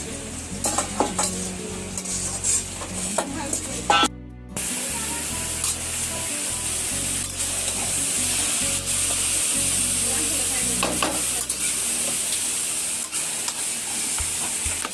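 Mutton sizzling in hot oil in a cooking pot while it is stirred, with clattering scrapes in the first few seconds. After a brief break about four seconds in, a steady sizzle.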